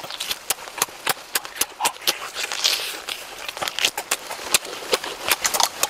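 Close-up eating sounds of someone chewing cooked chicken: an irregular run of sharp wet smacks and clicks from the mouth, a few each second.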